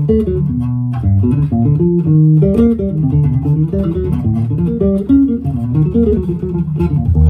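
Fodera Emperor Deluxe 5 five-string electric bass played with the fingers in an unbroken run of notes, its Aero single-coil pickups blended 50-50.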